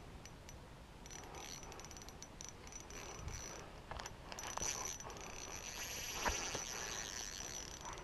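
Small spinning reel ticking and whirring while a hooked trout is played on light line, a fast, fine clicking with a thin high whine that grows stronger about a second in.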